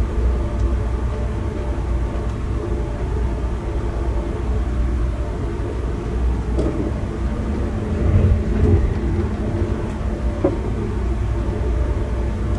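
Passenger train running along the line, heard from inside the carriage: a steady low rumble of wheels on the rails under a steady hum, briefly louder about eight seconds in.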